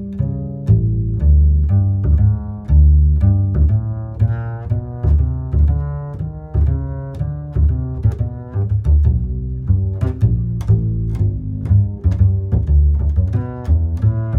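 Background music with a strong bass line and a steady rhythm of short pitched notes.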